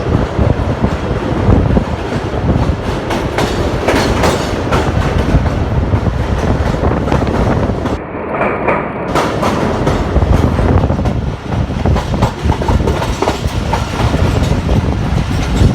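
Jaffar Express passenger train running over the River Ravi bridge: loud continuous rumble of wheels on the track, with clickety-clack knocks over the rail joints.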